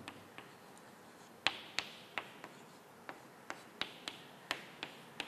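Chalk tapping and clicking against a chalkboard while writing: about a dozen sharp taps at uneven intervals.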